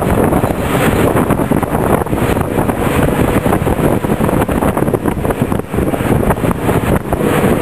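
Steady loud rushing of a moving vehicle with wind buffeting the microphone, mixed with road and traffic noise.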